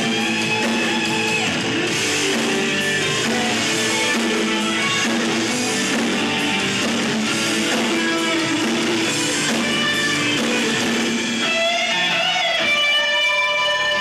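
A rock band playing live, electric guitar out front. Near the end several held notes bend in pitch.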